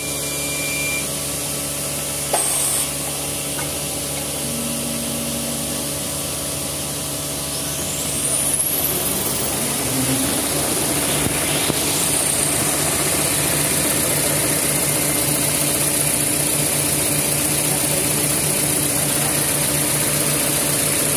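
Maxi roll paper rewinding machine starting up in a paper mill: a knock about two seconds in, then its drive motors spinning up with a rising whine about eight seconds in, after which it runs steadily, louder, with a low hum over the factory's background machinery noise.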